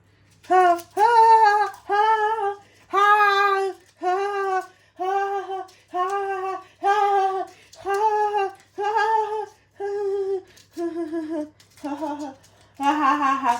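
A high voice singing or humming a wordless tune of about a dozen short held notes, one after another, mostly on one pitch, stepping lower over the last few.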